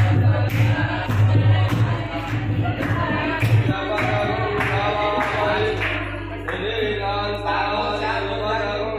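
Music with voices singing over a low, steady beat; the beat drops away about halfway through while the singing carries on.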